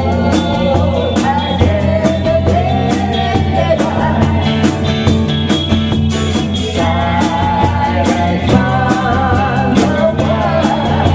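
Rock band playing with a lead vocal over electric guitar, bass and drums, the cymbals struck several times a second.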